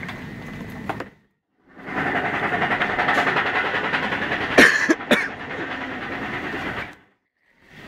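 A loud, steady rattling clatter that starts abruptly about two seconds in and cuts off abruptly about a second before the end, with two sharp knocks about two-thirds of the way through.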